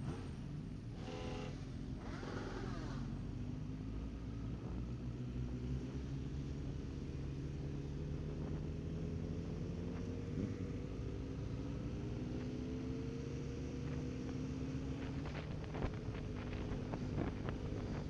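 Motorcycle engine running steadily on the move, its note rising and falling gently with the throttle.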